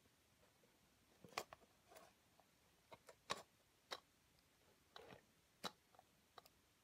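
Small, irregular clicks and taps of a disassembled Sony SDR-SR200 camcorder's plastic and metal parts being handled with the fingers. About a dozen separate clicks, some in quick pairs, the sharpest a little over a second in and again past three seconds.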